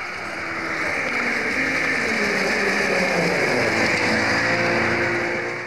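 Two-stroke snowmobiles racing at speed, growing louder as the sleds come closer and one passes near, with a hiss of track and snow under the shifting engine notes.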